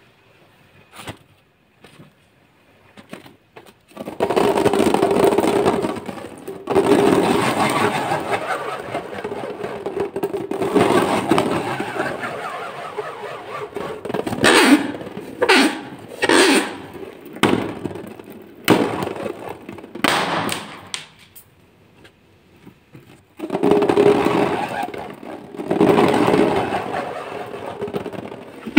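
Hands rubbing and squeezing rubber balloons: long stretches of crackly, scraping rubbing, broken in the middle by a run of short separate rubs. The first few seconds are quiet apart from a few light clicks.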